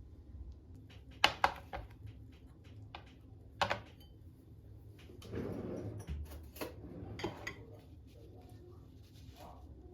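Hard household items being handled and set down: a few sharp clinks and knocks, the loudest a quick pair about a second in and another near four seconds, with a brief rustling swish in the middle.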